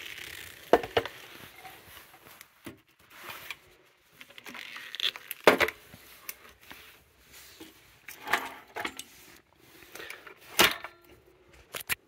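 Handling noise of a 1930s Hoover 900 commercial upright vacuum, an all-metal machine, being turned over by its handle: a few sharp metal knocks and clanks spread through, with light rubbing and rattling in between.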